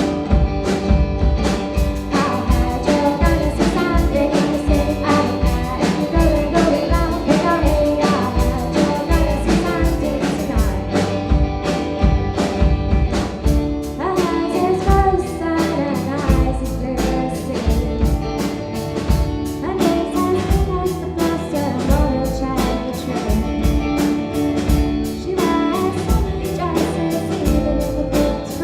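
A band playing a song with a sung vocal over guitar and a steady, busy drum beat.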